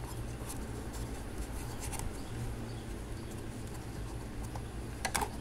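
Light scratching and a few small taps on a TV circuit board as solder joints are probed for a bad contact, with a sharper cluster of clicks near the end, over a steady low hum.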